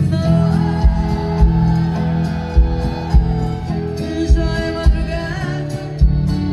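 Live band music: a singer over acoustic guitar, accordion, bass guitar and drums, with a regular drum beat.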